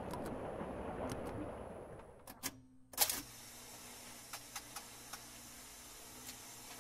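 A dense noisy sound fades out over the first two seconds. Then comes one sharp click about three seconds in, followed by a few faint computer mouse clicks over a steady low hiss.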